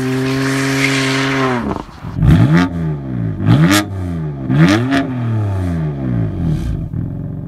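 BMW M4's twin-turbo 3.0-litre straight-six held at steady high revs with the rear tyres spinning in a burnout, a hiss of tyre noise over the engine note, which drops away just before two seconds in. Then an engine revved sharply several times, each rev rising and falling about once a second, with loud cracks among them, fading out near the end.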